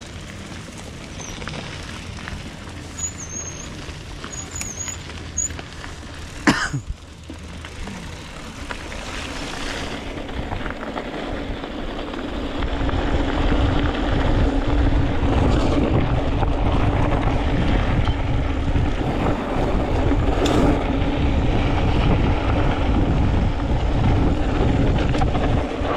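Steady rumbling wind and rolling noise from a mountain bike out on the trail, growing louder about halfway through. There is a sharp click about six seconds in.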